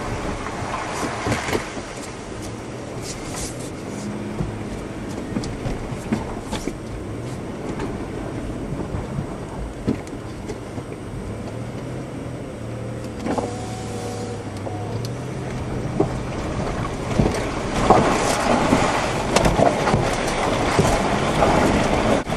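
Land Rover Discovery 3 driving slowly over rough off-road ground, heard from inside the cabin: a steady low engine hum under tyre and road noise, with scattered knocks and rattles. The noise grows louder and rougher over the last few seconds.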